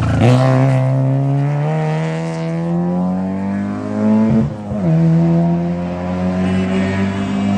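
Engine of a 150 kW Škoda Octavia race car revving hard as it accelerates away from a corner. The pitch climbs steadily, drops at an upshift about four and a half seconds in, then climbs again.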